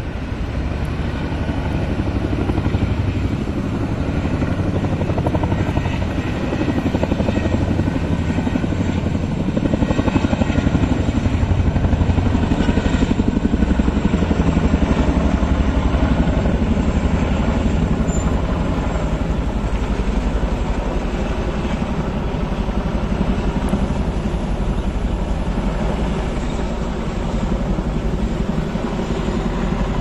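Formation of helicopters led by a CH-47 Chinook tandem-rotor helicopter flying overhead, the rotor blades beating in a steady, rapid throb. It grows louder toward the middle and eases off later.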